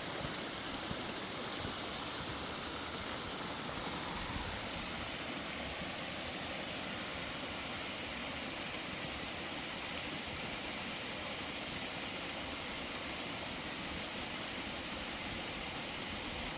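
Mountain creek water rushing steadily over rocks.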